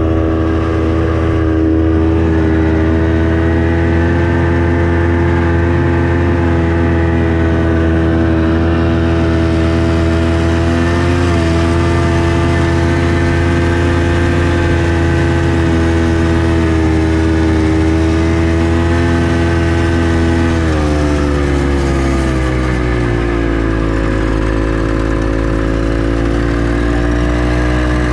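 Snowmobile engine running steadily while hauling a load. About three-quarters of the way through its pitch drops as it slows, and it picks up again at the very end.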